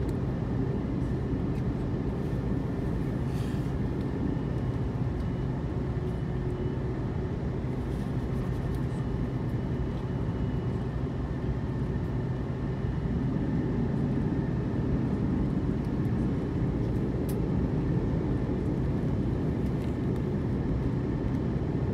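Airbus A330-300 cabin noise on the ground before takeoff: a steady low rumble and hum with a faint high whine over it, growing slightly louder about 13 seconds in.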